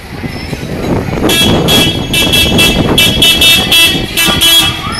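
Vehicle horns tooting in a quick series of about ten short blasts, starting about a second in, over the running of the torch relay convoy's vehicles as a bus passes close by.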